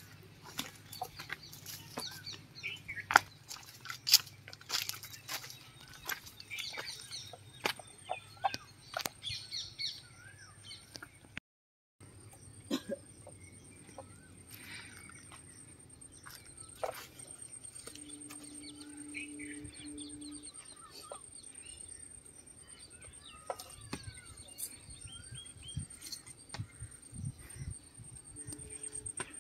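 Footsteps crunching through dry leaves and twigs, with birds chirping. After a cut, birds chirp over a steady high-pitched whine, and a few low thumps sound near the end.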